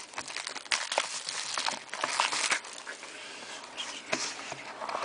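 Trading-card pack wrapper being torn open and crinkled as the cards are pulled out: irregular rustling and crackling with many small clicks, busiest in the first couple of seconds and thinning out afterwards.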